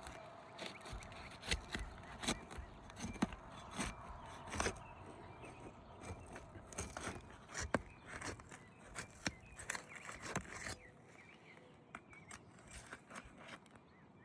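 Asphalt roof shingles being pried apart with a tool worked under them to break their adhesive seal strip: irregular scraping, crackling and clicking that eases off about eleven seconds in.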